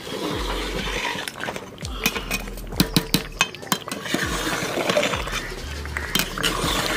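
Metal ladle clinking and scraping against the side of a large aluminium cooking pot while thick chicken korma gravy is stirred: a run of sharp clinks from about two to four seconds in, with a few more later.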